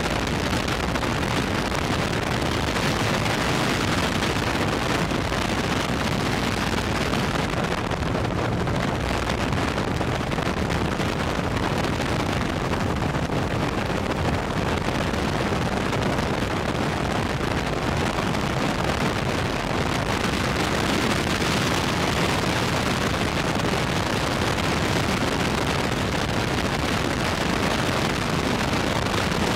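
Steady, loud wind noise buffeting the microphone in flight, with the drone of aircraft engine noise mixed in.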